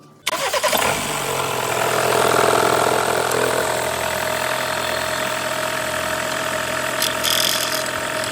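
A 2019 Ford Transit's engine starting up suddenly, a third of a second in, and then running steadily at idle, with the crackling and knocking from the accessory belt drive that comes from a seized overrunning alternator pulley.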